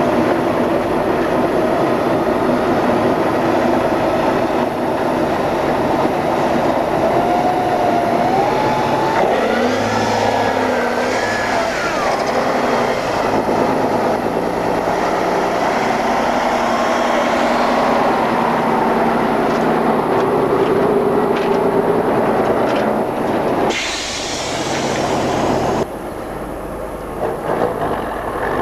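Tatra heavy off-road trucks' air-cooled diesel engines labouring hard under load as they climb a steep dirt trench, the engine note rising and falling as the drivers rev. Near the end comes a short rush of noise, then the engine sound is quieter.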